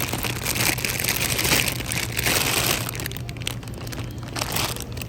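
Crinkling, crackling handling noise made of many small rustles, louder for the first three seconds and then quieter.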